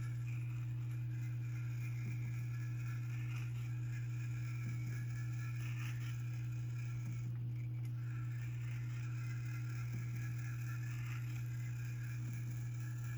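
Urgos UW 312 triple-chime grandfather clock movement striking: its hammers hit the chimes a number of times, each stroke leaving several tones ringing and fading, as the movement strikes the hour. A loud, steady low hum runs underneath throughout.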